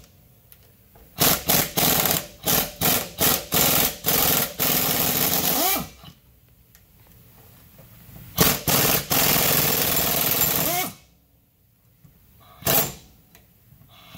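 Pneumatic impact wrench hammering on the bolts of a Mustang S550's factory two-piece driveshaft, loosening them to remove it. It comes in three spells: a few short bursts that run into a longer run, a second group of bursts ending in a long run, and one short burst near the end.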